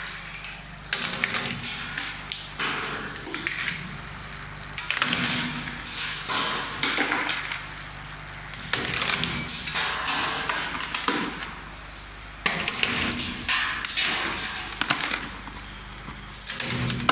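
Gloria Babochka industrial walnut cracker at work: walnut shells cracking and rattling through the machine in bursts of dense clatter a few seconds long, over the steady hum of its motor.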